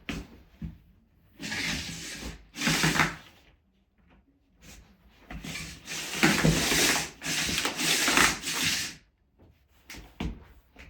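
Rubbing and scraping: two short bursts, then a longer one of about three seconds.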